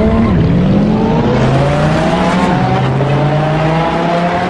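Sports-car engine revving hard, its pitch climbing and then dropping back several times as if shifting up through the gears, over a rushing tyre and road hiss.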